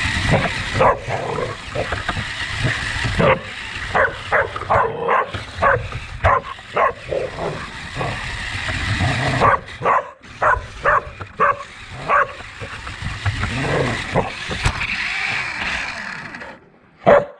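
A dog barking and yipping over and over, short sharp barks coming close together, over the steady running noise of a remote-control car's motor. The motor noise falls away near the end, just before one last loud bark.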